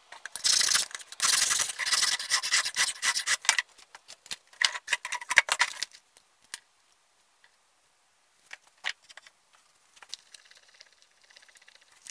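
Scraping and rustling of tools and parts being handled on a workbench, loud for the first six seconds with a short break in the middle, then only a few scattered light clicks.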